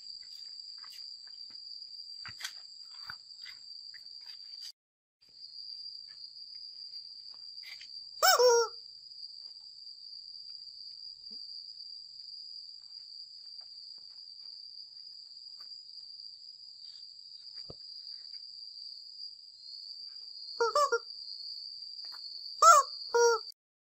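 Steady, high-pitched insect drone that breaks off briefly about five seconds in. A few short, louder calls come through about eight seconds in and twice near the end.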